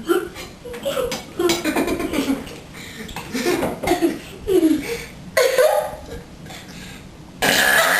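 Two children burping and laughing at each other in short bursts, with a louder, rougher outburst near the end.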